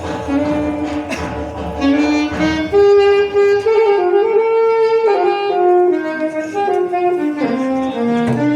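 Shehnai (sanai) playing a slow, ornamented melody, stepping up and down between held notes with short glides, without drum accompaniment.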